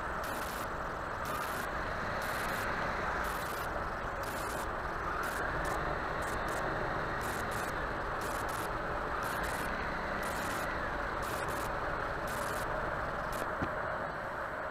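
Steady engine and tyre noise of a car driving slowly, with a short knock near the end.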